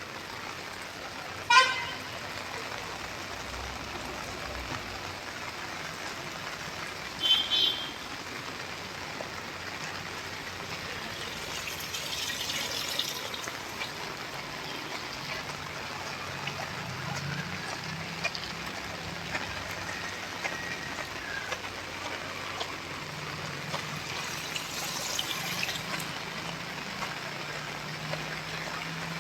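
Steady rain falling and dripping, with two brief sharp high-pitched tones, one about a second and a half in and another about seven seconds in, and a faint low hum in the second half.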